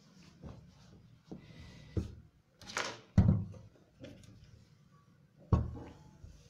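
Trousers being moved across a table with a short fabric rustle, and several dull knocks. The loudest come about three seconds in and again near the end, as a clothes iron is put down on the trouser leg to press the hem.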